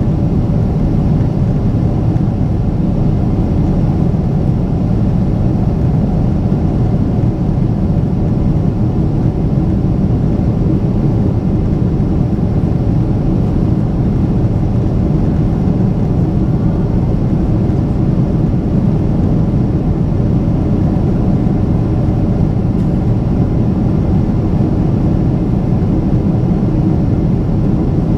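Steady low rumble of a Boeing 777-300ER's GE90 engines and airflow heard inside the passenger cabin, even in level throughout.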